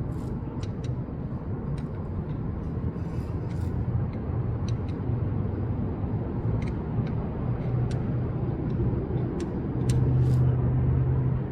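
Steady low rumble, like a motor vehicle running, with a dozen or so small, sharp clicks and taps scattered through it, swelling briefly near the end.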